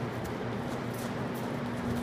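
Boots scuffing and shuffling on gym mats and a hard floor as two people grapple, making short scrapes and clicks, over a steady low hum.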